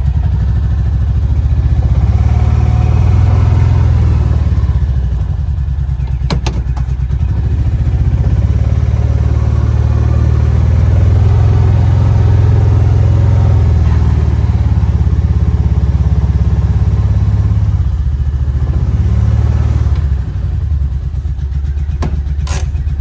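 The buggy's gasoline engine running as it is driven, its pitch and level stepping up and down with the throttle, with a sharp click about six seconds in. It has not been running well, which the owner suspects is flooding, with a smell of fuel once it runs.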